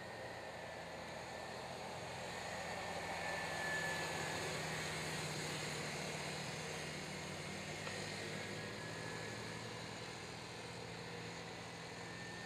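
Two small youth ATV engines running at race speed as a steady drone, growing louder about four seconds in and then slowly easing off.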